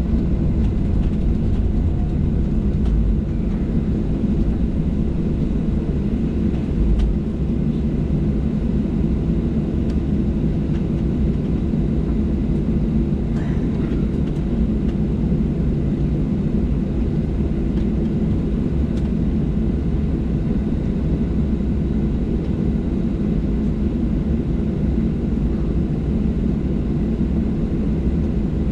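Boeing 737-700's CFM56-7B jet engines at idle, heard inside the passenger cabin: a steady low rumble with a faint hum, as the jet lines up and holds on the runway before takeoff.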